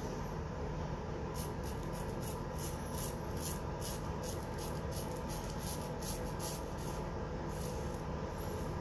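Quick, scratchy strokes of wet shaving across a lathered face, about three a second.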